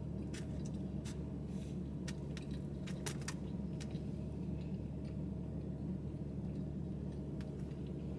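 Plastic fork clicking and scraping in a styrofoam takeout container, a few sharp clicks mostly in the first half, over a steady low hum inside a parked car.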